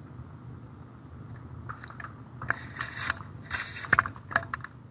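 Low hum over a video-call line. From about halfway in come irregular clicks and crackles, sharper and more frequent toward the end.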